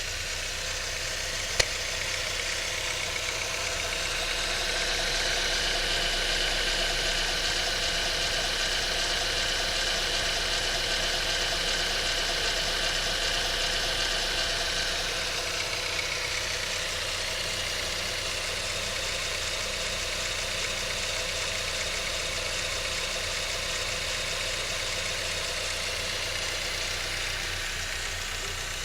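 Ford Fiesta 1.0 Zetec Rocan engine idling with a repeated 'chec - chec - chec' clatter, which the owner traces to the oil pump: a known trait of this engine that does not affect how it runs. A single sharp click about a second and a half in.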